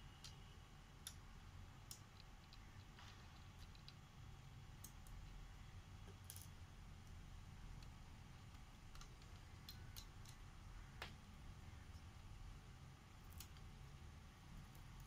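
Faint, scattered clicks and taps of a small screwdriver and plastic parts being handled on an open Acer Aspire 3 laptop chassis, about a dozen at irregular intervals, as the cooling fan is unscrewed and lifted out, over a low steady hum.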